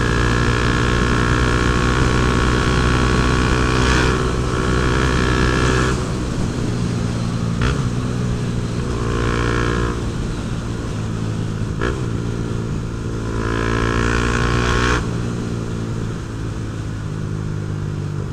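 Honda CB Twister's single-cylinder engine running hard through a Protork Mine 3 sport exhaust while the bike is ridden, bellowing loudly. The note swells and eases as the throttle is worked, with brief dips in pitch about eight and twelve seconds in.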